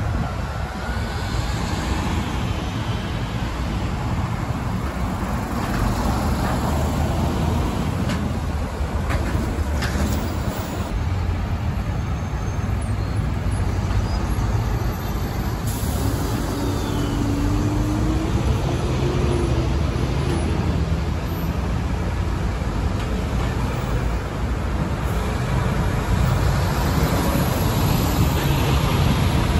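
Buses and road traffic passing on a city street: a steady rumble of engines and tyres, with a faint brief whine a little past halfway.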